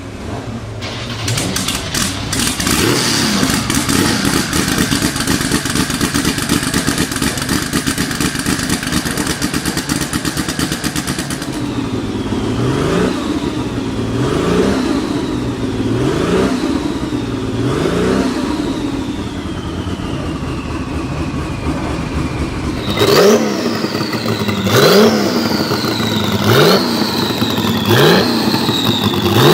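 Porsche 935 Kremer's turbocharged flat-six running, then revved in repeated blips about every two seconds, each followed by a falling turbo whistle. In the last few blips there is a sharp crack from the exhaust at each rev, the pops that come with the flames.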